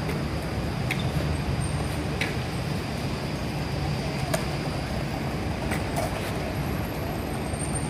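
Steady city street noise: a low rumble of traffic, with a few faint clicks scattered through it.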